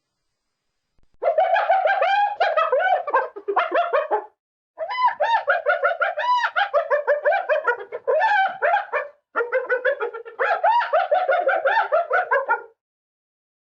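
Spotted hyena giggling: fast runs of short, high, arching whoops, in three bouts with brief pauses between them, starting about a second in.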